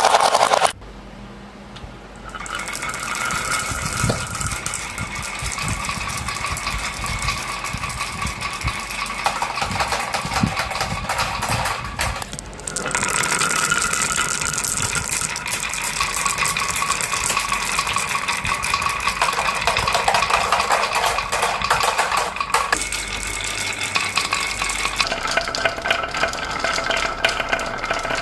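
Marbles rolling and clattering along a toy marble run: a dense stream of small clicks and rattles over a steady rolling hum. It drops away briefly about a second in and again around twelve seconds.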